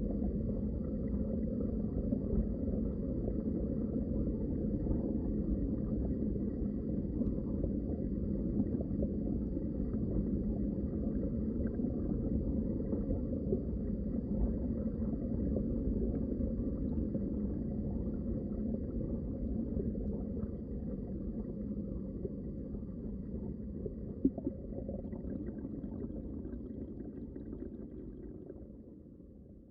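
Underwater water ambience: a steady low rush of water, with one short tick about 24 seconds in, fading out near the end.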